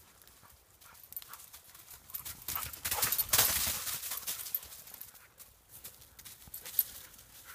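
Dry leaf litter crunching and rustling under a yellow Labrador's running paws. It is loudest in a burst about three seconds in as the dog bounds close by, with softer crackling as it slows to sniff.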